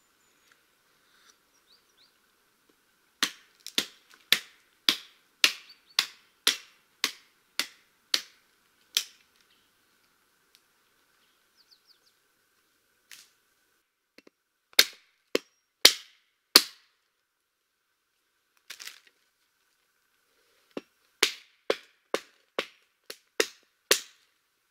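An axe chopping into wood in runs of sharp blows, about two a second: a dozen strokes, then four louder ones, then about eight more near the end.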